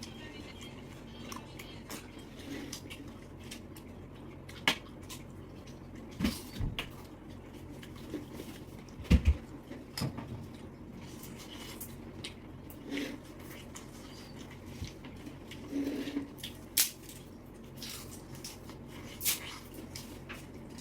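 Close-miked eating sounds of seafood: scattered wet clicks, smacks and squishes, with a few louder knocks of handling food and dishes, the loudest about nine seconds in.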